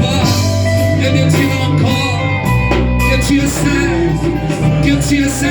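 Live church worship band music: electric guitar and bass playing held notes, with some singing faintly in it.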